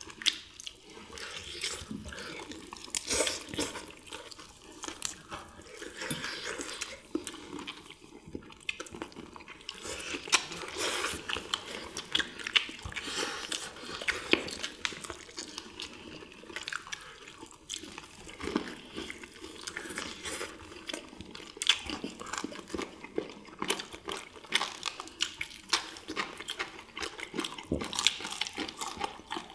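Several people chewing and biting into crispy fried chicken and battered fried squid: crunching, wet smacking and meat being torn, with many small crackles and clicks.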